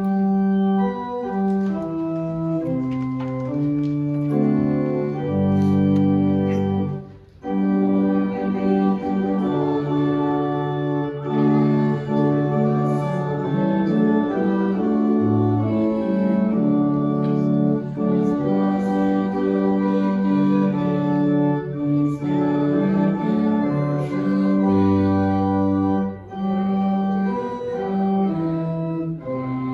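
Church organ playing slow, held chords, the chords changing every second or so, with a brief break about seven seconds in.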